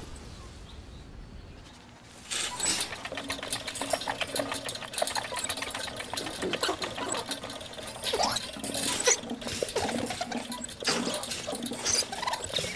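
Hamster running in an exercise wheel: the wheel rattles and clicks rapidly and unevenly, starting about two seconds in after a quieter stretch.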